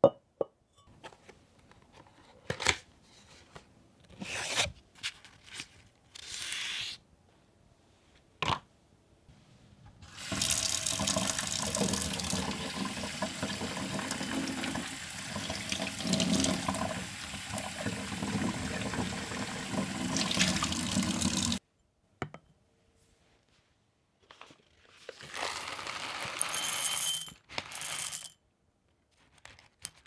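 Water poured in a steady stream onto the paper filter in a V60 dripper, rinsing the filter, for about eleven seconds before it stops abruptly. Before it come a knock as a glass server is set on a wooden counter, then scattered light knocks and paper rustles. Near the end, coffee beans rattle as they are poured from a bag into a ceramic dosing cup.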